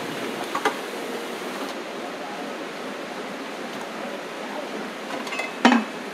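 Steady hum and hiss of factory machinery, with a few light clicks about half a second in and a sharp metallic clank near the end as the loaded rack of metal trays and pallet truck are moved.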